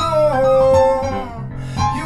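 Man singing a jazz standard with a Yamaha electronic keyboard accompanying him. He holds one long note through the first half, then there is a short break before the next phrase begins near the end.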